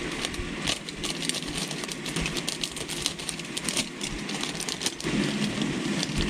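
Firework star rolling machine running: a steady motor hum under a dense, irregular clicking rattle of small stars tumbling in the drum.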